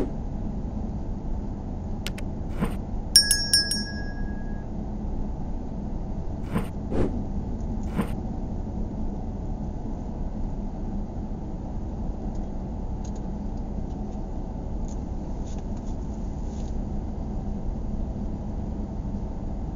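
Steady low road and engine noise of a car driving along a street, heard from inside the cabin. A few sharp knocks and clicks come in the first eight seconds, with a brief high ringing chime about three seconds in.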